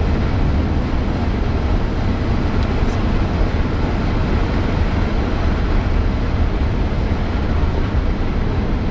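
Steady rumble and hiss of a vehicle driving on a paved road: tyre and wind noise at a constant speed.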